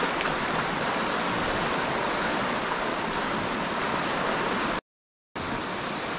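Steady rushing of a river current running high, an even hiss of moving water. It cuts out completely for about half a second near the end.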